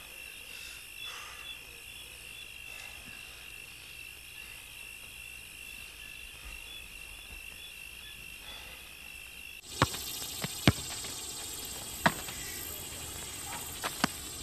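Crickets chirring steadily in a high, even tone. About ten seconds in this cuts out abruptly, giving way to a hissier background with a few sharp knocks.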